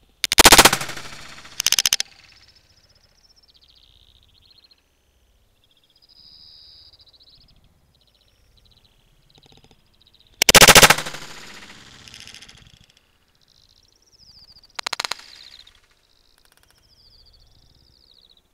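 Four gunshots fired at birds in flight: two about a second apart at the start, a third about ten seconds in and a fourth some four seconds later. Small birds chirp faintly between the shots.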